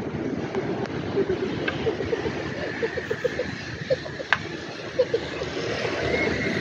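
Beach ambience: a steady rush of wind on the microphone and surf, with faint voices of people in the distance and a few light clicks.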